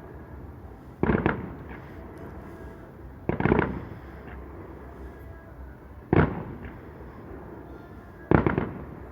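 Fireworks going off: four bursts a couple of seconds apart, each a sharp bang or short cluster of bangs.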